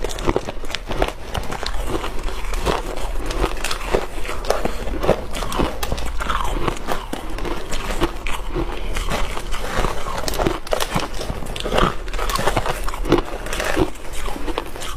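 Close-miked crunching and crackling of refrozen shaved ice, broken up by hand and chewed: a dense, irregular run of crisp crunches.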